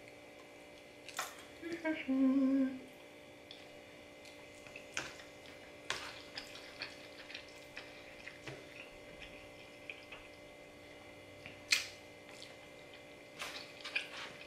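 Close-up eating sounds of spaghetti being chewed: soft wet mouth clicks and smacks scattered through, with a short hummed 'mm' about two seconds in. Now and then a fork or spoon clicks against the plastic bowl.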